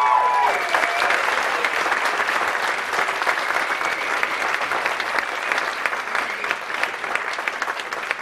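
Audience applauding: dense, steady clapping. A few held tones die away in the first half second.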